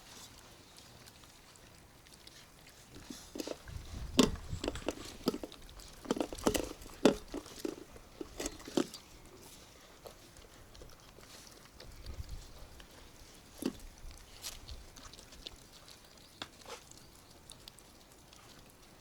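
Five-week-old Belgian Malinois puppies chomping and smacking at their food: irregular wet clicks and bites, busiest in the first half and thinning out later.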